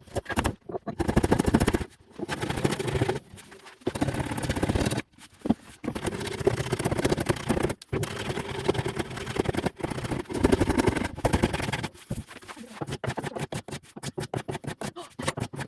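Hand plane strokes across the oak box's dovetail joints, taking the proud pins down flush with the face: a series of long scraping passes with short gaps between them, then shorter, quicker strokes near the end.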